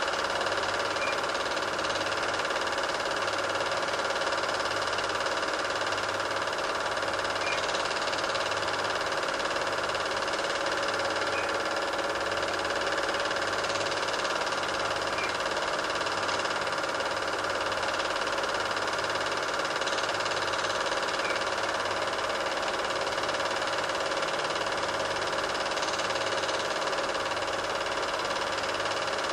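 Super 8 film projector running: a steady mechanical whirr with a slowly pulsing low hum and faint ticks. The film itself has no sound track.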